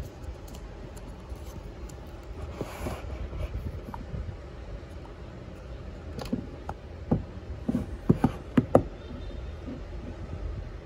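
Handling noise from unboxing a smartphone: a soft rustle of the paper sleeve, then a run of light clicks and taps about six to nine seconds in as the phone knocks against its cardboard box and the table, over a steady low hum.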